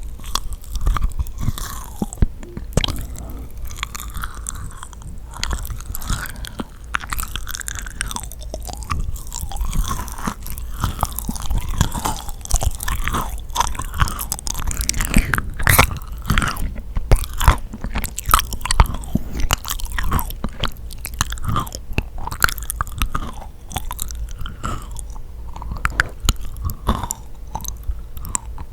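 Close-miked chewing and biting of yakgwa, the honey-soaked fried Korean cookie: sticky, wet mouth sounds with many small irregular clicks and smacks.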